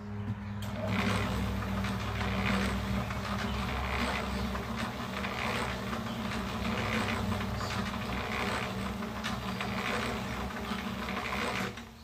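Small electric cement mixer running with concrete mix tumbling and scraping in the rotating drum, a churning that pulses roughly once a second over the steady hum of the motor. The churning starts about a second in and stops abruptly near the end while the motor hum carries on.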